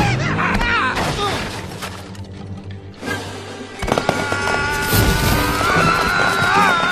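Dramatic film score music with a heavy crash-like impact about four seconds in.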